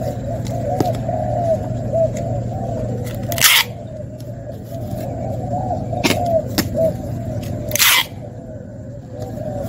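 Packing tape pulled from a handheld tape dispenser across a cardboard box, two short loud screeches about four seconds apart. Zebra doves coo without a break underneath.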